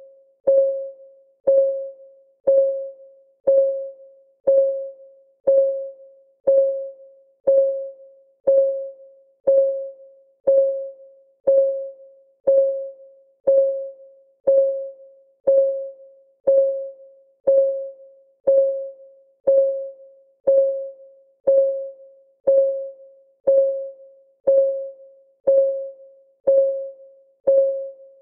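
Clock-ticking sound of a countdown timer: a short, pitched tick once a second, each dying away quickly, in a steady, even rhythm.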